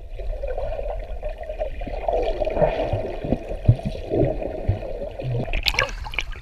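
Muffled underwater sound through a submerged camera: gurgling water and bubbles, with scattered low knocks from the swimmers moving around it. About five and a half seconds in, the camera breaks the surface with a splash and the sound opens up again.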